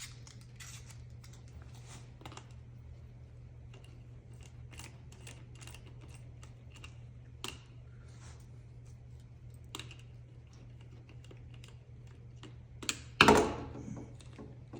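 Small clicks and taps of a hand tool and plastic parts as the front wheel is taken off a Traxxas Rustler RC car, with one louder clatter near the end. A steady low hum runs underneath.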